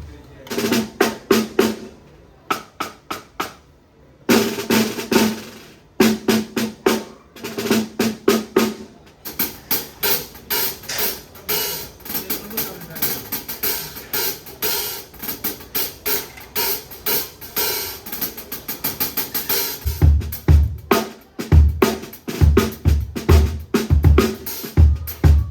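Drum kit sound check, played in short runs: a few separate groups of strokes first, then about ten seconds of fast, continuous strokes, and near the end deep kick-drum strokes with sharper hits between them.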